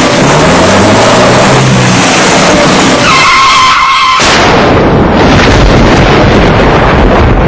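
Car engine revving with rising pitch, then tyres squealing in a skid about three seconds in. The squeal cuts off a second later into a sudden loud rushing noise that carries on.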